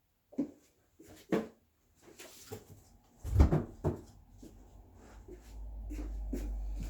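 Cardboard-boxed firework cakes being handled and set down: a few knocks and thumps, the heaviest about three and a half seconds in. A low rumble builds near the end.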